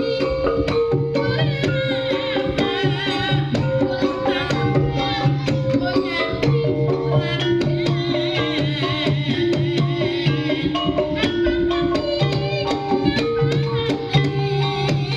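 Javanese gamelan in Banyumasan style playing: held metallophone notes in a repeating pattern, frequent kendang drum strokes, and a wavering melody line above.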